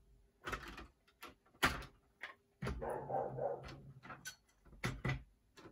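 Sharp clicks and knocks of HO-scale model freight cars being picked up and set down on a foil-faced foam layout board. A longer pitched sound lasts about a second and a half in the middle.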